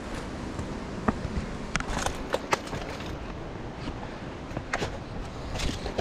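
Footsteps crunching and clicking irregularly on a rocky trail, over a low rumble of wind on the microphone.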